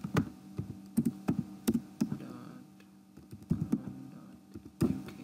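Computer keyboard keys typed in short bursts of a few strokes, with a pause of over a second near the middle, over a steady low hum.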